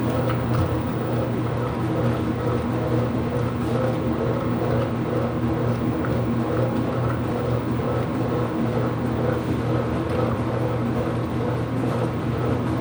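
IPSO washing machine running mid-cycle: a steady, unbroken machine hum with a low drone that does not change.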